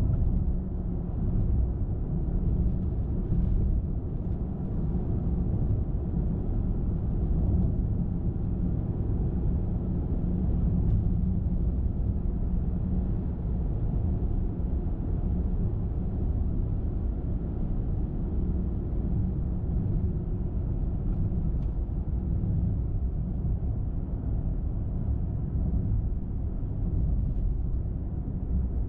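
Road noise of a car driving at highway speed: tyres on the pavement and the engine, a steady low rumble.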